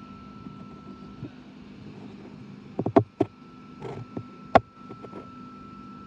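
Stationary V-set double-deck electric train humming steadily at the platform, with a thin high steady tone over it. A few sharp knocks come about three seconds in, and a single loud click follows about a second and a half later.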